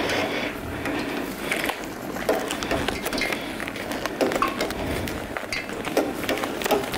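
Kitchen clatter: irregular clicks and rattles of utensils and containers being handled.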